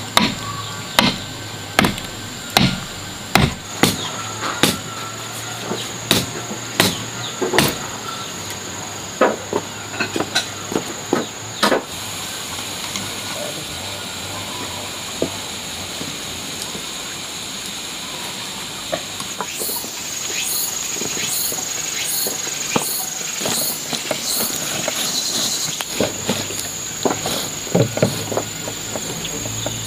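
Chopping strikes on a wooden board, sharp knocks about one a second for the first dozen seconds, then a steady hiss, with more scattered knocks near the end. A faint steady high tone runs underneath.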